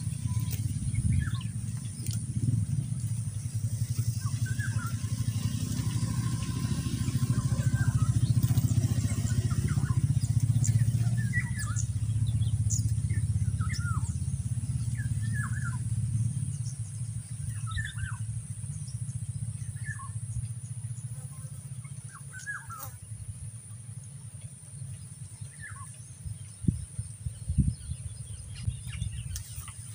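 Low drone of a motor vehicle engine, growing louder over the first several seconds and fading away after about sixteen seconds, while small birds chirp throughout. A few soft knocks near the end.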